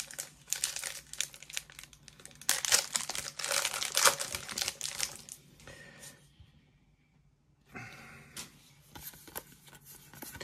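A foil Pokémon TCG booster pack wrapper being crinkled and torn open by hand, the crackling loudest a few seconds in and stopping about six seconds in.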